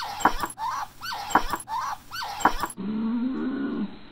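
A pet degu making short, sharp squeaking calls in quick succession, about two a second, in protest at being touched while it eats: an angry, threatening degu. Near the end the sound cuts abruptly to a lower, drawn-out tone.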